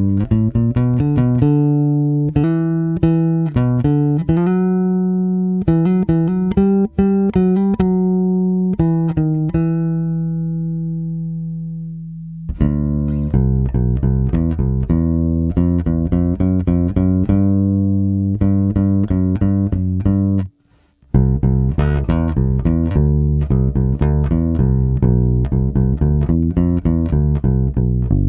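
Electric bass with Tom Marcel Vintage Mustang pickups and GHS Brite Flats strings, played through a Seymour Duncan Studio Bass Compressor and a Phil Jones PE5 DI. Plucked notes, then one held note that rings and fades for several seconds. About twenty seconds in, a brief stop before a busier line of notes.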